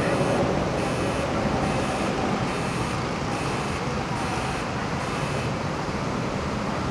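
Electronic warning beeper sounding in short regular beeps, a little more than one a second, over a steady rumble of machinery and wind; the beeping stops about five seconds in.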